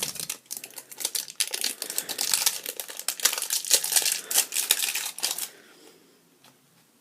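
Plastic wrapper of a Toxic Waste sour sweet crinkling and crackling as it is worked open by hand, for about five and a half seconds before it stops.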